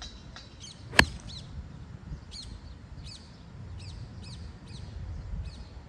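A 7-iron strikes a golf ball off the tee about a second in, a single sharp click from a poorly struck shot that the golfer calls a horrible strike. Birds then chirp repeatedly over a steady low rumble of outdoor air.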